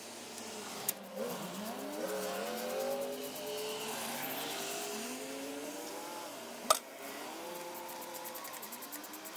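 Rubber coolant hose squeaking as it is twisted and worked off its pipe on a military truck's diesel engine: a string of wavering squeals that rise and fall. Two sharp knocks break in, about a second in and again later on.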